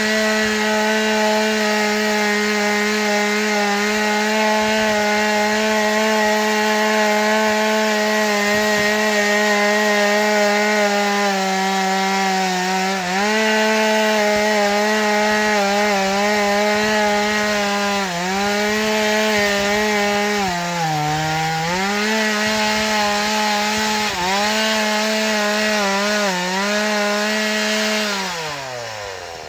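Stihl MS 180 two-stroke chainsaw running at full throttle while cutting wood, its pitch sagging briefly several times as the chain bites into the cut. Near the end the throttle is let off and the engine winds down toward idle.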